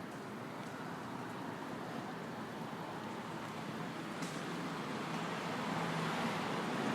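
City street traffic noise: a steady hum of passing cars and other vehicles, growing louder over the last couple of seconds.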